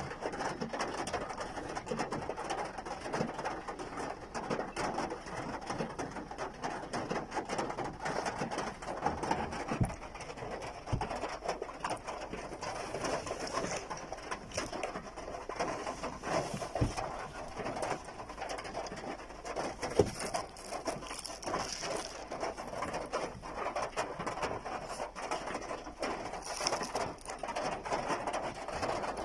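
Heavy rain falling steadily on the car, heard from inside the cabin as a dense patter of drops.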